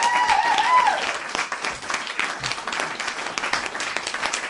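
Crowd applause, dense clapping, with a few rising-and-falling cheers in the first second.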